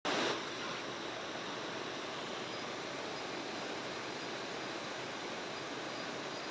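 Floodwater rushing in a steady, even torrent, with a brief louder burst in the first moment.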